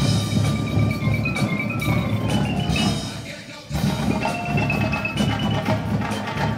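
Indoor percussion ensemble playing: marching snares, tenor drums and bass drums over marimbas and other mallet keyboards carrying a stepping melody. There are sudden loud accents at the start and again about three and a half seconds in, after a short fall-off.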